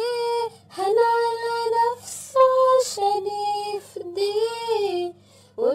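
A female voice singing an Arabic Christian hymn unaccompanied or nearly so, in long held and gently bending notes broken by brief pauses.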